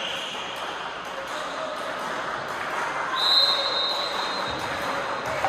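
Spectators murmuring in a sports hall during a volleyball match. About three seconds in, a referee's whistle sounds one long, steady, high blast lasting about two seconds.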